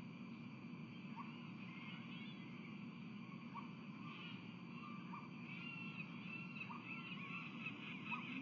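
Birds calling: a stream of short high chirps that grows busier in the second half, with short repeated notes about once a second, over a steady low background hum.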